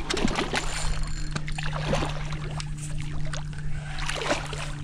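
Hooked redfish thrashing and splashing at the surface of the water beside a kayak, in repeated short splashes, over a steady low hum.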